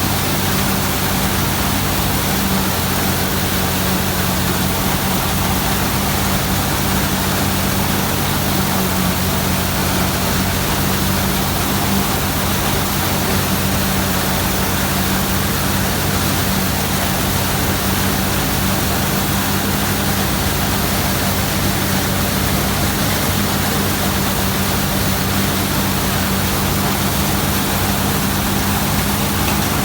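Combine harvester running steadily under load while cutting wheat: a constant engine hum with the even rushing noise of the threshing machinery.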